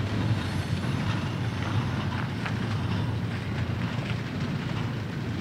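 Double-stack intermodal container freight train rolling past: a steady low rumble of wheels on rail, with a few light clanks from the cars.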